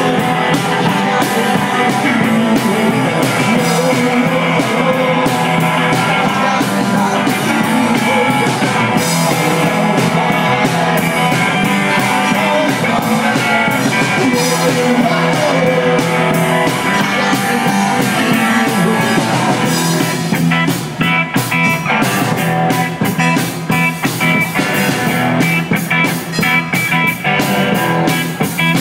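A rock band playing live: a singer singing into the mic over electric guitars and a drum kit, recorded on an iPhone close to the stage. About two-thirds of the way in the playing turns choppier, with separate, sharper drum hits.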